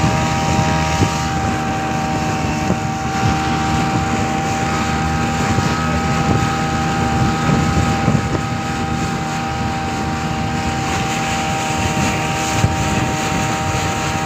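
Speedboat engine running at a steady high speed, a constant whine over the rush of wind on the microphone and water against the hull.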